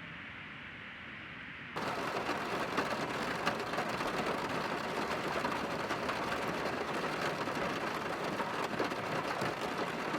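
Heavy rain falling, a dense steady hiss full of small drop impacts. It starts abruptly about two seconds in, after a quieter steady hiss.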